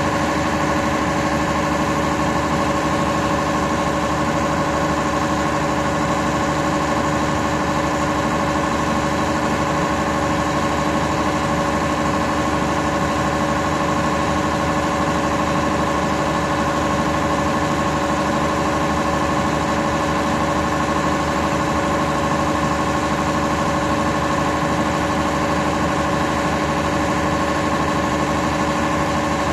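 MAN diesel railcar's engine idling steadily while the train stands, an even hum with a few steady tones and no change in pitch or level.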